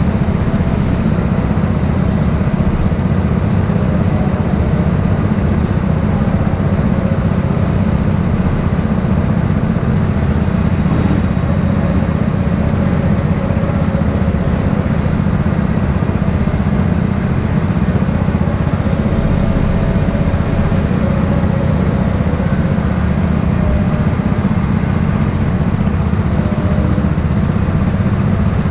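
Go-kart engine running steadily, heard from on board the kart as a loud, even low rumble.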